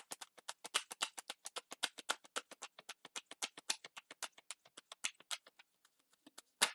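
A deck of oracle cards being shuffled by hand: a quick, even run of soft card slaps, about eight a second, thinning out toward the end, with one louder slap near the end.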